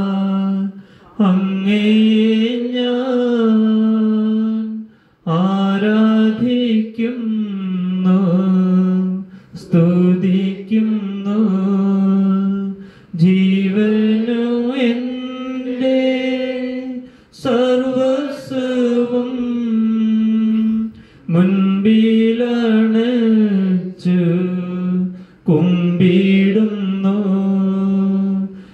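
Devotional prayer chanted in a sung, recitation-like melody, held mostly on one steady note with small rises, in phrases of a few seconds separated by short breaths.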